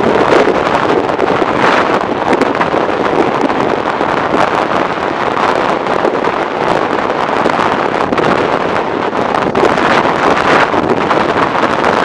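Wind buffeting the microphone of a camera on a motorcycle moving at speed in strong wind: a loud, steady rush that swells briefly a few times.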